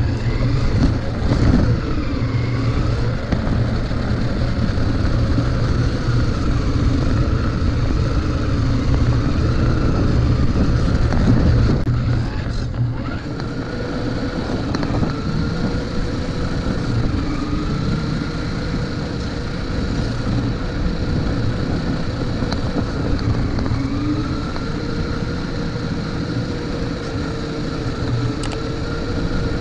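Toy RC monster truck driving on asphalt, heard from a camera mounted on the truck: its electric motor and gears whine, rising and falling in pitch as the throttle changes, over a heavy rumble of tyres and chassis vibration.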